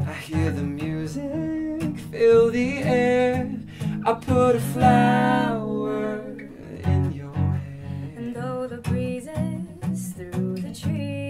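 Acoustic guitar strumming with voices singing a slow acoustic pop duet; the singing is strongest in a couple of phrases in the first half and comes back near the end.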